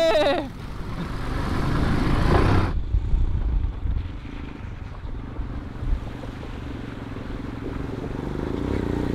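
Single-cylinder adventure motorcycles, a Royal Enfield Himalayan and a KTM 390 Adventure, riding through muddy trail puddles. It opens with a loud rush of splashing water that stops abruptly under three seconds in. Then comes a quieter, steady engine sound that grows louder toward the end as the bikes approach.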